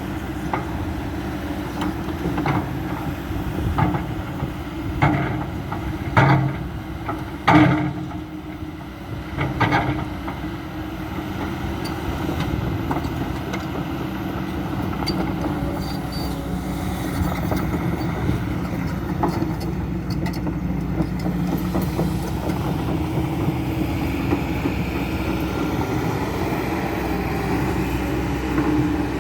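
Kobelco SK200-10 excavator's diesel engine running steadily, with a series of metallic clanks and knocks during roughly the first ten seconds, two of them the loudest.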